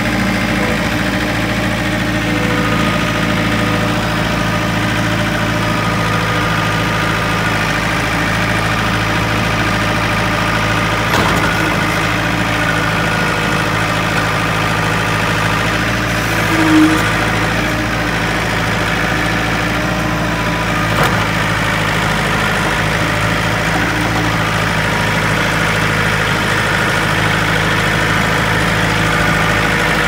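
Tractor engine running at a steady speed as the machine plows snow with a front blade, with a couple of faint knocks.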